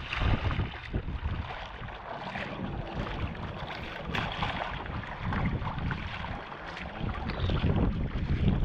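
Water swishing and slapping along a Fenn Bluefin-S surfski's hull as it is paddled through light chop, with paddle-blade splashes and low wind buffeting on the microphone. The water and wind grow louder near the end.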